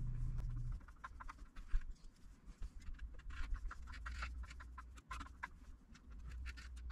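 Light, irregular clicks and taps of deadbolt hardware being handled and fitted into the door, after a low hum that stops under a second in.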